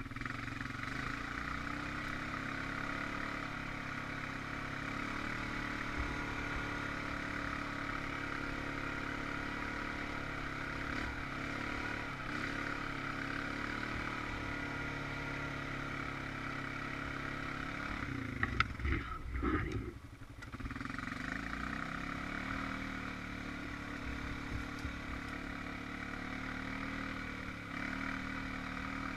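Honda Rancher 420 ATV's single-cylinder four-stroke engine running at a fairly steady pitch, with a short run of knocks and clatter about nineteen seconds in and a brief drop in level just after before it runs on.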